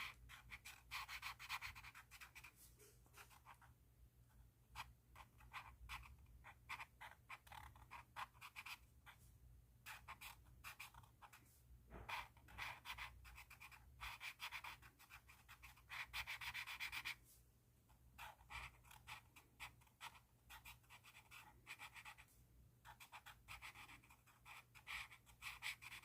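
Pen scratching on paper in quick, irregular strokes, in clusters with short pauses, and one longer unbroken stroke about sixteen seconds in.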